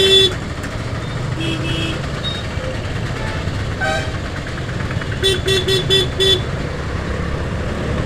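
Road traffic held in a jam: steady engine and tyre rumble with car horns honking. There is a short double honk about a second and a half in, a brief higher-pitched honk around four seconds, and a run of five quick beeps between about five and six and a half seconds.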